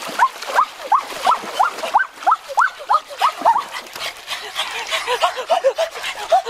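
A rapid run of short, rising yelps, three or four a second, over splashing water.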